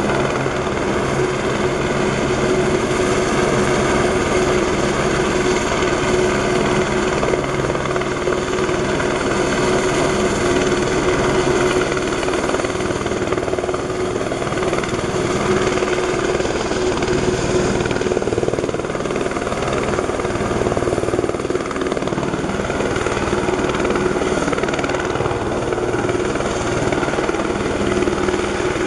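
Helibras AS350 Esquilo single-turbine helicopter hovering overhead on a long line, its turbine and rotor running in a steady drone with a constant tone and fast rotor pulsing.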